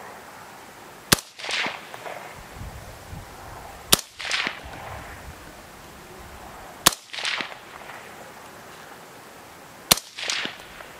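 Four single rifle shots from an AR-15-style rifle with an 18-inch upper, firing PMC 55-grain ammunition, spaced about three seconds apart. Each sharp crack is followed under half a second later by a fainter second report.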